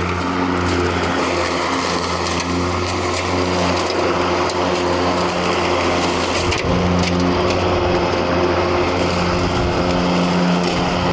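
Mowrator S1 AWD battery-electric remote-controlled lawn mower running and mowing with a steady hum. The sound shifts about two-thirds of the way through.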